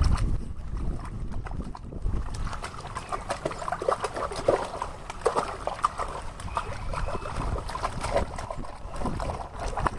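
A small dog splashing and pawing at water in a shallow paddling pool, pushing floating plastic balls about. Irregular quick splashes and light taps come thick and fast from about two seconds in.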